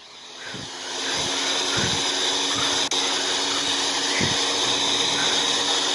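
Electric table fan switched to high speed, spinning up over about the first second and then running steadily: a whoosh of moving air over a faint motor hum.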